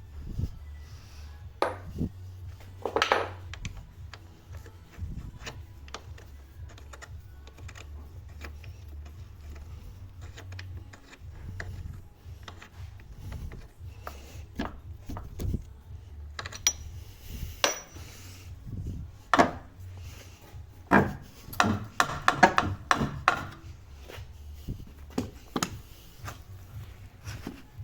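Hand tools and steel suspension parts clinking and knocking at irregular intervals while the front lower control arm's bolts are undone. One clink about 3 s in rings on, and a quick run of clanks comes around two thirds of the way through, over a low steady hum.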